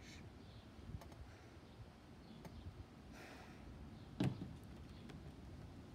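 Quiet handling of a squeeze bottle of glitter glue and a plastic tub on a plastic table. A few faint clicks are followed by one sharp knock about four seconds in, as the glue bottle is set down on the table.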